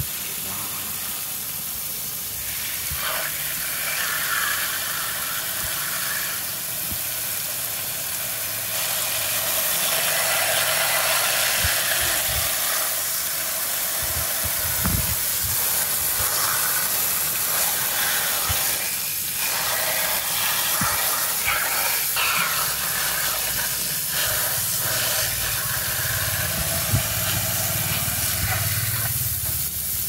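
Garden hose spray nozzle shooting a steady jet of water onto mud-caked plastic toy trucks and the concrete floor: a continuous hiss with splashing.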